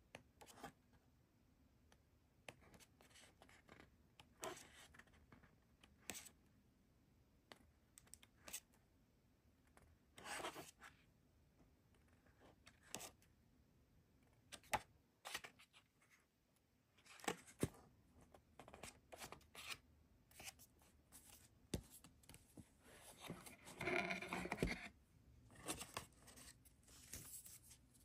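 Faint handling of album paper and packaging: scattered rustles, scratches and small clicks, with a longer rustle about ten seconds in and a louder stretch of rustling near the end.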